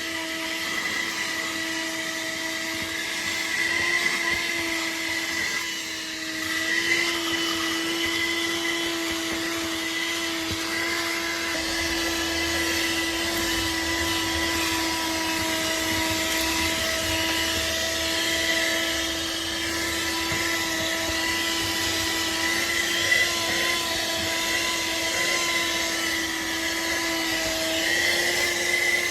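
ArmorAll 12V handheld car vacuum running steadily, its small motor giving a steady whine over a rushing hiss of air as it sucks sand and dirt off a car floor.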